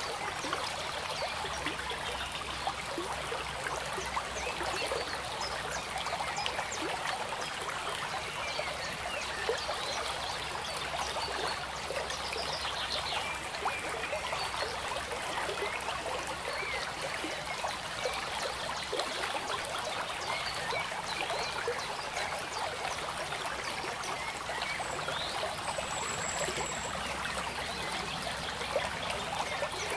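Steady trickling, stream-like water sound, a dense continuous crackle that never pauses. A brief high thin tone sounds once near the end.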